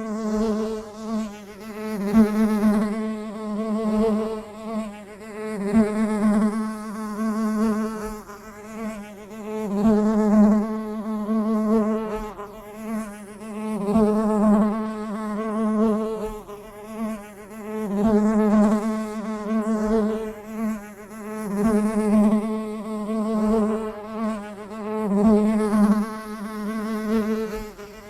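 A bee buzzing in flight: one steady buzz that swells and fades every couple of seconds as it comes close and moves away.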